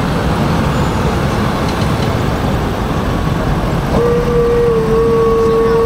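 Lifted Ford Super Duty dually pickup's engine running with a low rumble as the truck rolls slowly. About four seconds in, a long steady horn blast starts and holds.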